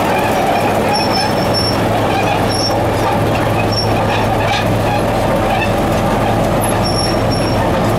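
Caterpillar D8K crawler dozer driving, its turbocharged six-cylinder diesel running steadily under the clatter of its steel tracks, with brief high squeaks from the tracks now and then.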